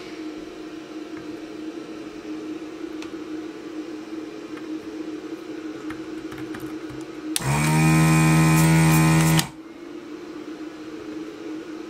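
Desoldering station's vacuum pump buzzing for about two seconds, a little past halfway, as the desoldering gun sucks molten solder from the 7805 regulator's pads. A steady low hum runs underneath.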